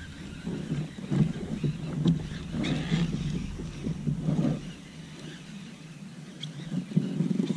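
Irregular rustling and light knocks from handling a baitcasting rod and reel while reeling in from a kayak, over a low rumble that fades out about two-thirds of the way through.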